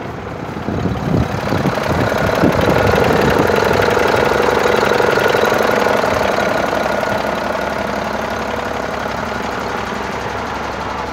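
International water truck's engine idling steadily. It gets louder for a few seconds as the microphone comes close to the engine bay, then eases off.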